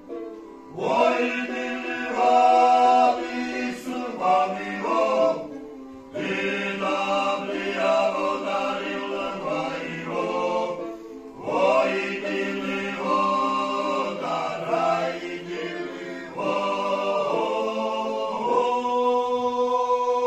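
Svan men's choir singing a traditional polyphonic song, with the chuniri (bowed fiddle) and changi (harp) accompanying. The singing comes in four phrases of about five seconds each, with short breaks between them.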